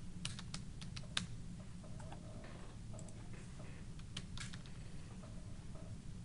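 Computer keyboard keys clicking as numbers are typed in, a quick run of keystrokes in the first second and a half and a few more scattered through the rest, over a low steady hum.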